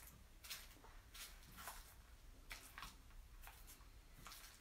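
Faint, repeated wet swishes of a paint roller being rolled back and forth through stone-fleck coating in a plastic-lined paint tray, loading the roller.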